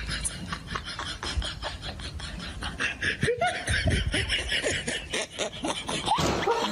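People laughing in quick repeated bursts, with a brief rush of noise near the end.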